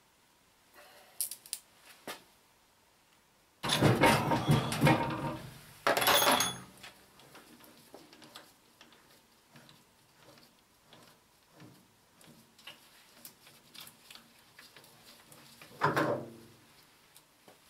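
Metal clunking and clattering as a lathe chuck is levered with a pry bar in its jaws and worked off the headstock spindle. There are two loud bursts of clatter about four and six seconds in, with faint ticks between, and one shorter burst near the end.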